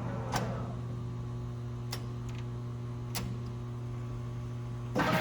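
Leblond Makino Servo Shift engine lathe running with a steady hum, with a few sharp clicks as its speed is changed; about five seconds in it suddenly runs louder, with a steady whine.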